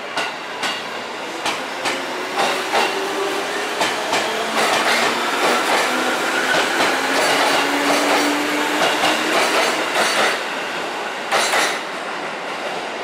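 JR West 205 series electric train pulling out of the platform: its wheels click over the rail joints, faster and faster, with a hum rising in pitch as it gathers speed. The sound falls away near the end as the last car clears.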